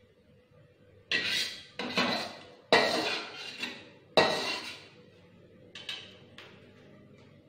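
Long metal spatula scraping and knocking against a steel wok while stir-fried bean sprouts are scooped out onto a plate. There are four loud strikes in the first half, each ringing briefly, then two lighter taps near the end.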